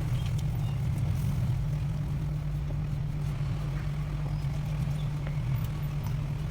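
Steady low motor hum, with a few faint light clicks over it.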